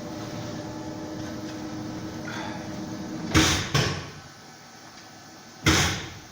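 Mecal Argus SW 452 CNC double-mitre aluminium saw homing to its reference position: the drive runs with a steady hum, then stops about three seconds in with two loud sudden bangs, and another comes near the end.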